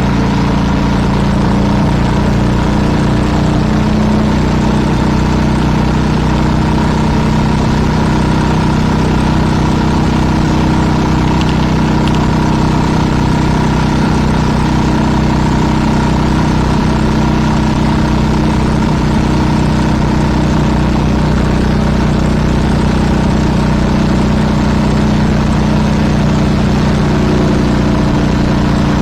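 A vehicle engine running steadily at an unchanging speed, a constant loud drone with several steady tones.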